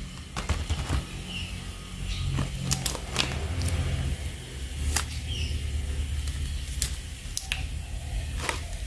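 Plastic packaging being handled: sticker packs in clear plastic sleeves are lifted out of a plastic blister tray, giving sharp irregular clicks and crinkles, about eight or nine in all, over a low handling rumble.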